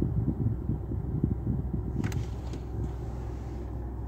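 Low, steady rumble of a car idling and rolling slowly forward, heard from inside the cabin. A short hiss comes in about halfway through.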